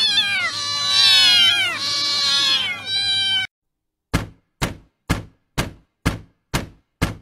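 Several cats meowing over one another, loud calls that fall in pitch, stopping abruptly about three and a half seconds in. After a brief silence comes an even run of short knocks, about two a second.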